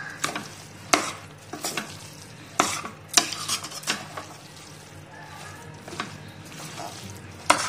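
A metal spoon stirring raw chicken mince into masala in a pressure cooker. It scrapes and knocks against the pot's side about eight times, at irregular intervals.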